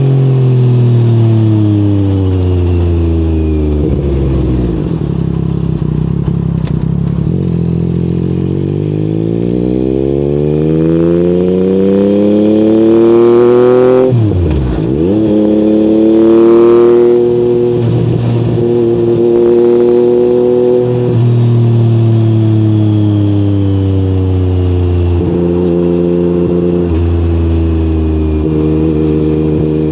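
Yamaha MT-09's three-cylinder CP3 engine running through an Akrapovic exhaust while ridden. The revs sink at first, then climb steadily until about halfway, drop sharply and come straight back up, and in the second half step up and down between engine speeds several times.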